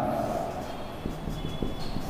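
Marker writing on a whiteboard: faint strokes with a brief high squeak past the middle, over low room noise.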